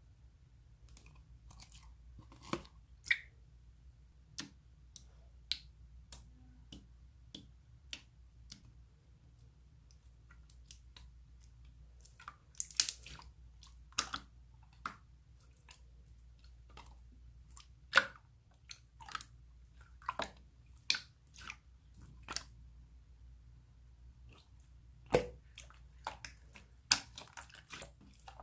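Pink clear slime being squished and pressed by hand, giving irregular sharp pops and clicks over a faint low hum.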